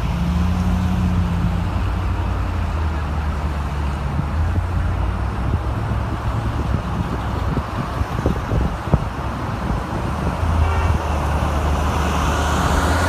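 Steady low rumble of car engine and road noise.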